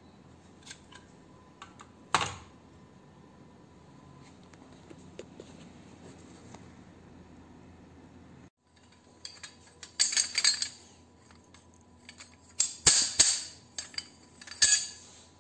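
Scrap metal lamp-housing parts being handled: a single sharp knock about two seconds in, then, after a brief cut, several bursts of metal clinking and clattering as the parts are knocked together.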